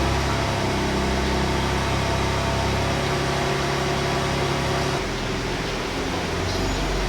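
A car engine idling steadily just after being started, its note changing about five seconds in.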